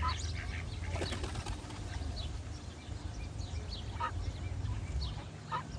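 Duckling peeping in short, high chirps, with three short lower duck calls: near the start, about four seconds in and near the end. A steady low rumble runs underneath.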